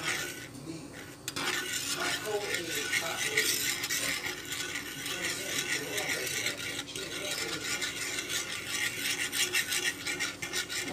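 Runny scrambled eggs being stirred and scraped around a non-stick frying pan with a utensil: continuous rapid scratching, with a short pause about a second in.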